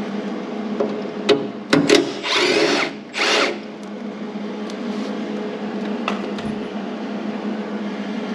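MIG welder firing two short welds on 18-gauge sheet steel, the first about a second long and the second shorter, each with a sputtering crackle, after a few sharp clicks. A steady hum sits underneath.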